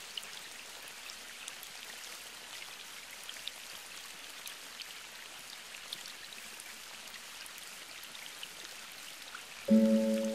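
Steady rain hissing with scattered drop patters. Near the end, music comes in suddenly with a loud held chord.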